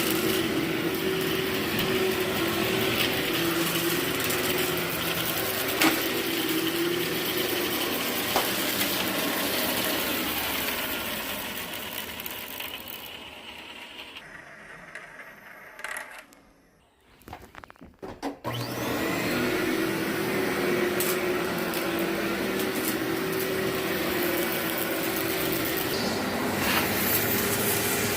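Vacuum cleaner running over a heavily soiled carpet: a steady motor hum with scattered crunchy crackles as debris is sucked up. About halfway through it fades and drops out for a few seconds, then the motor starts up again with a rising whine.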